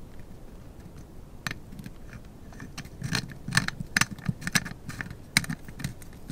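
Light metal clicks and scrapes as the High Standard Dura-Matic pistol's barrel takedown screw is turned down by hand to lock the barrel to the frame, the clicks coming thicker in the second half.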